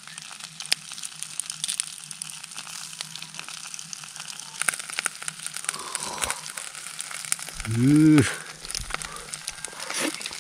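Tuna collar sizzling and crackling as it grills skin side down, a steady hiss with many fine pops. A short hummed voice sound rises and falls near the end.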